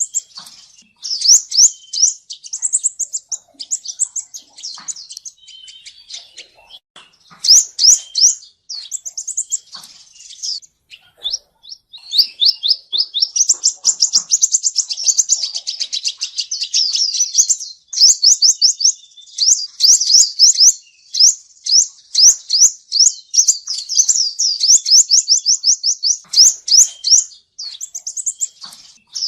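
Male sunbird (the 'seven-colour' sunbird) singing: loud, rapid, high-pitched chirps and trills, with a long fast trill about halfway through. This is the male's song as used as a lure call for trapping.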